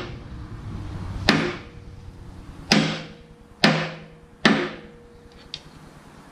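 Hammer striking the steel pivot pin of a John Deere 310D backhoe's cylinder: four ringing metal blows about a second apart, the first four spaced wider than the quick strikes just before.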